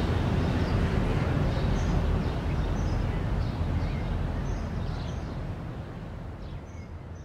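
Town outdoor ambience: a low, steady rumble of distant traffic with small birds chirping now and then, fading out gradually.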